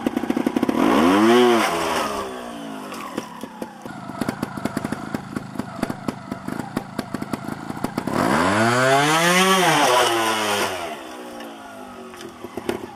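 Two-stroke trials motorcycle engine revved twice, about a second in and again from about eight seconds in, each rev rising then falling in pitch. Between the revs the engine ticks over unevenly.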